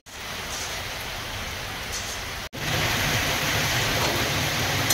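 Heavy monsoon rain falling steadily. The sound breaks off for an instant about halfway through and comes back louder and deeper.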